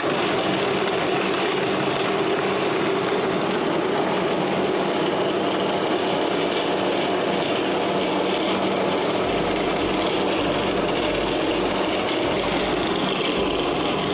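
Magimix food processor with its S-blade running steadily, churning soaked oat flakes and dates into a thick paste. A low rumble joins the motor noise about nine seconds in.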